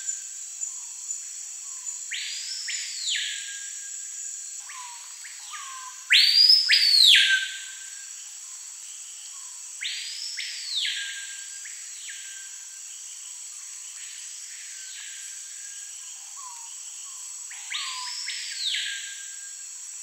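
Screaming piha (Lipaugus vociferans) singing its loud whistled song, four ringing phrases that sweep up steeply and fall back, the loudest about six seconds in.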